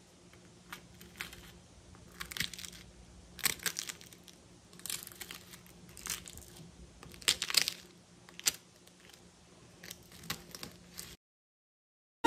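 Knife cutting through the crisp, flaky crust of a baked byrek, the pastry layers crackling and crunching in short irregular bursts. The sound stops about a second before the end.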